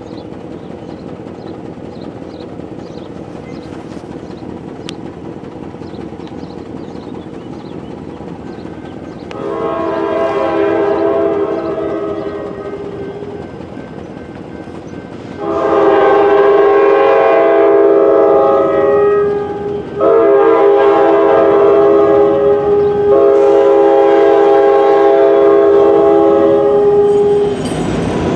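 A Norfolk Southern EMD SD70 freight locomotive sounds its multi-note air horn as it approaches a grade crossing. It gives one long blast about ten seconds in, then a second sounding from about fifteen seconds that runs on for some twelve seconds with two brief breaks. Under it is the steady rumble of the approaching train, which grows louder as the locomotive arrives near the end.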